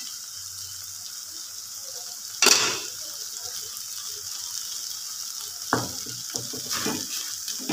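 Snake gourd and chana dal sizzling in an aluminium pan with a steady hiss, the water now fully cooked off. There is one loud scrape about two and a half seconds in, and near the end a run of short clicks and scrapes as a metal slotted spoon stirs against the pan.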